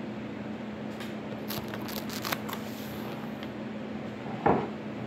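Paper napkins draped over cups rustling and crinkling as they are handled, with a cluster of crinkles in the middle, then a short thump near the end, over a steady low hum.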